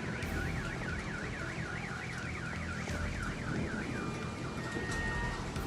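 Electronic alarm siren warbling rapidly, its pitch sweeping up and down about four times a second, over a steady low rumble; the warble stops about four seconds in, leaving faint steady high tones.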